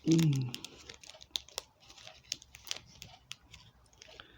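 Packaging rustling and crinkling with many small, irregular clicks and ticks as a model aircraft's wing is worked free of tight packing.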